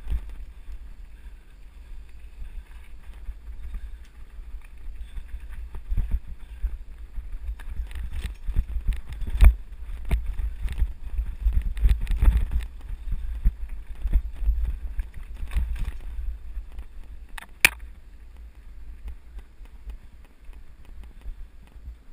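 Mountain bike riding fast down a bumpy dirt trail: wind buffets the microphone with a steady low rumble, and the bike rattles and knocks over the bumps. There is a brief sharp squeal near the end.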